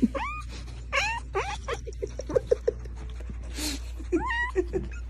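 A cat giving short, high, dog-like whining cries, each rising then falling in pitch: a few near the start and a few more near the end. Between them come quick short yips.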